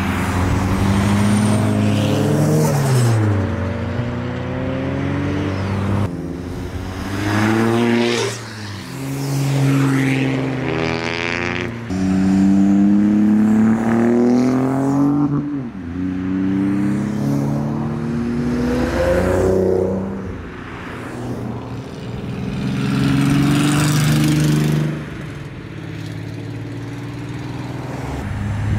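Modified tuner cars pulling away one after another, each engine revving up and dropping back as it passes.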